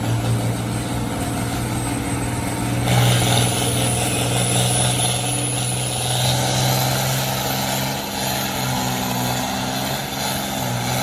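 Farm tractor engine running steadily under heavy load while pulling a weight-transfer sled down the pulling track, getting a little louder about three seconds in.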